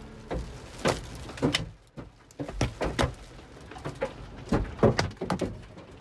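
Hailstones striking a car's windshield and roof, heard from inside the cabin: irregular hard knocks, sometimes several close together, over the hiss of heavy rain.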